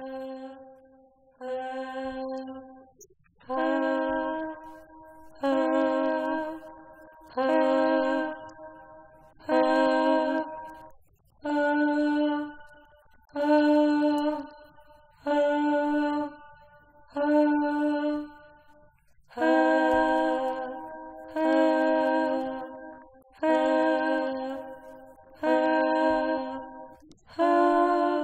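Music: a slow series of held, pitched notes, about one every two seconds, each swelling and then fading out, with the pitch shifting slightly from note to note.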